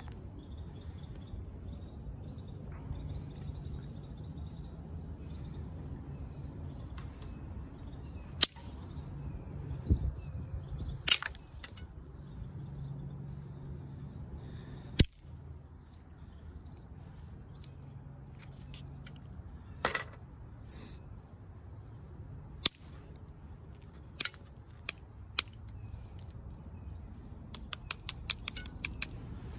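Copper-tipped flaker working the edge of a flint-like stone blade blank: scattered sharp clicks every few seconds as small flakes snap off, then a quick run of small ticks near the end as the edge is nibbled.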